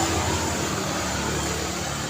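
Road traffic passing on a city street: a steady wash of tyre and engine noise, with a nearby vehicle loudest about as it begins and easing off after.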